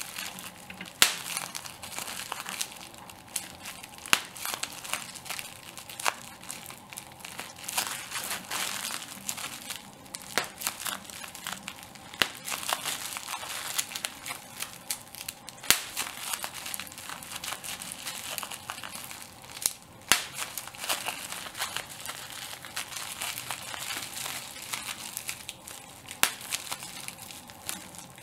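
Plastic bubble wrap being crumpled and squeezed: a continuous crinkling with sharp pops of individual bubbles bursting at irregular intervals, a few seconds apart.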